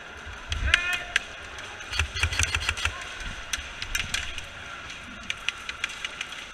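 Airsoft guns firing: a quick cluster of sharp shots about two seconds in, then scattered single cracks, over a low rumble.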